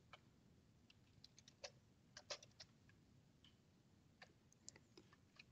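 Faint keystrokes on a computer keyboard: a string of short, irregular clicks over near silence.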